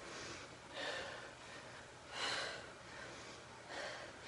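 A woman's hard breathing during crunches: short, sharp breaths through nose and mouth, three of them about a second and a half apart.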